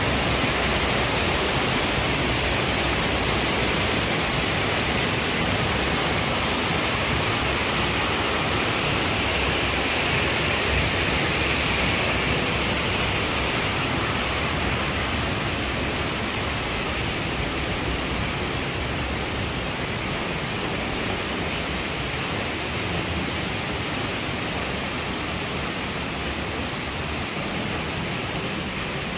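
Falling water rushing steadily, an even hiss that eases off a little over the second half.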